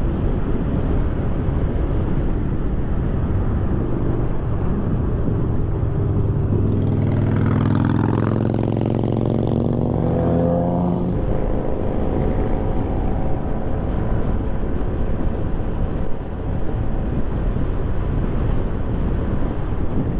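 Steady wind and road rumble from a motorcycle on the move. From about six and a half to eleven seconds in, an engine's pitch rises and then fades.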